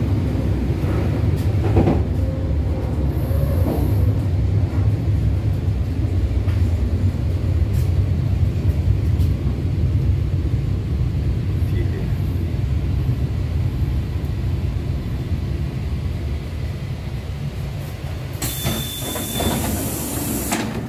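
Commuter electric train heard from inside the carriage: a steady low rumble from the running train, easing off over the last few seconds as it slows for a station. A burst of hiss comes near the end.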